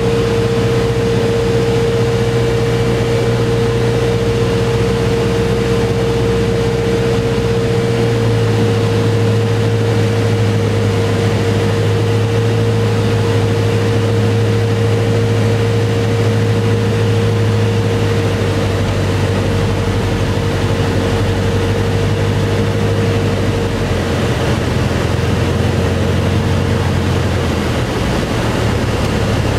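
Cessna 150's four-cylinder Continental O-200 engine and propeller heard inside the cockpit during the landing, a steady drone. Its note steps down about eight seconds in and again near the end as power comes off for the flare and rollout.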